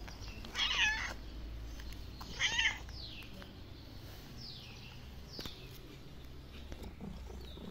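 Stray black cat meowing twice, each call about half a second long, the first near the start and the second about two and a half seconds in: a thin, hungry cat calling to the person who feeds her.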